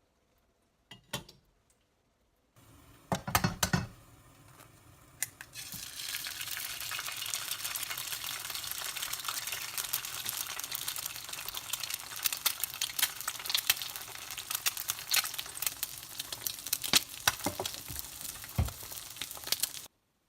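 Food sizzling as it fries in a pan, after a few knocks and clatters; the sizzle settles into a steady crackle about six seconds in and cuts off suddenly near the end.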